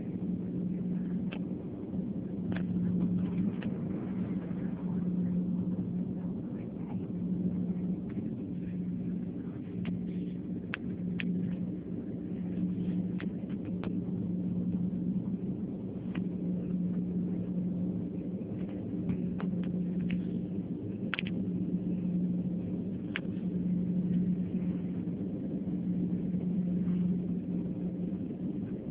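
Steady low hum and rumble of a parked airliner heard inside its cabin, with a tone that swells and fades about every two seconds. Light ticks are scattered through it.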